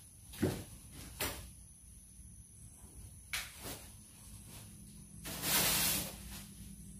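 Camping gear being unpacked from a black fabric bag: a few short knocks and rustles, then a longer, louder rustle about five seconds in as a black fabric item is shaken out.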